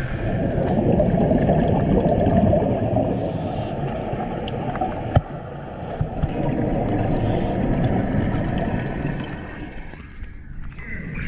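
Muffled underwater churning and bubbling from a scuba diver in the pool water, picked up by an underwater camera. Two brief hisses come about four seconds apart, and there is a single sharp knock around the middle.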